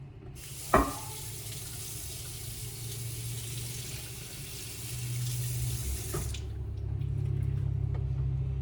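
Kitchen tap running as a cast iron griddle is rinsed under it, with a sharp knock about a second in. The water shuts off suddenly about six seconds in, with another knock.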